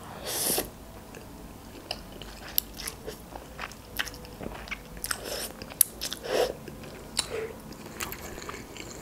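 Close-up eating sounds: a quick slurp of instant noodles at the start, then wet chewing with many small mouth clicks. A couple more slurps come a little past halfway.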